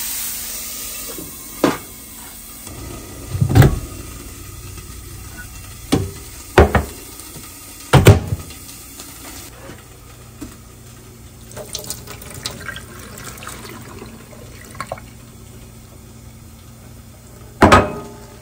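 Cookware and utensils knocking and clanking about six times while cooking, the loudest knocks a few seconds in and about eight seconds in, over a steady hiss that fades during the first half.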